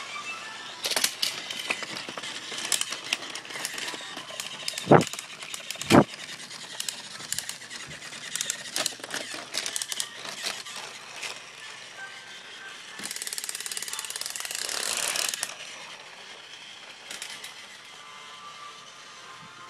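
Plastic toy trains and track being handled: scattered clicks and knocks, with two sharp, louder knocks about five and six seconds in and a rustling hiss for a couple of seconds past the middle.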